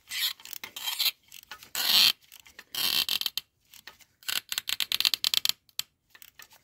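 Glow plug grinding in the cylinder head's threads as it is unscrewed with a ratchet from a Kia 1.6 CRDi D4FB diesel engine, in short irregular bursts. It is the noise that every plug on this engine makes near the end of its removal.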